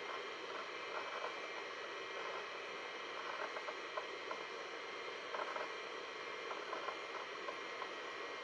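Seagate ST-251 MFM hard drive seeking with irregular clusters of clicking chatter as a virus scan reads through the drive, over a steady hiss.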